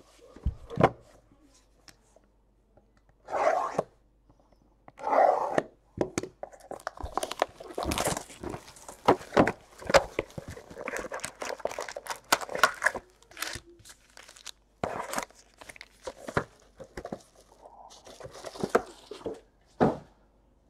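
A Panini Chronicles Baseball hobby box being opened by hand: a couple of papery rips a few seconds in, then a long run of crinkling, crunching and clicking as the wrapped card packs are pulled out of the cardboard box and laid down.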